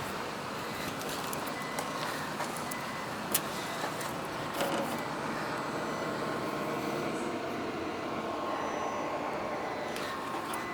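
Isuzu Elf truck's diesel engine idling steadily, with a few faint clicks over it.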